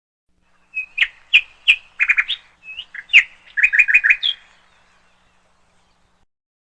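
A small bird chirping: a quick string of sharp chirps and short rapid trills lasting about four seconds, then it stops.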